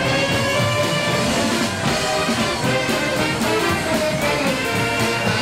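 A Philadelphia Mummers string band playing, with saxophones carrying the melody over banjos and accordions. It is a steady, full-band sound with held notes.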